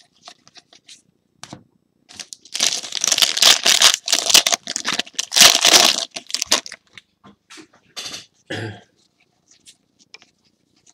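Foil trading-card pack wrapper crinkling and tearing open, starting about two seconds in and lasting about four seconds. Before and after it come light clicks and slides of cards being handled.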